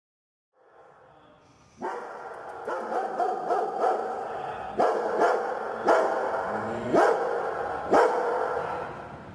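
Large shepherd-type shelter dog barking over and over with its head raised, starting about two seconds in and then about once a second, each bark ringing off the hard kennel walls.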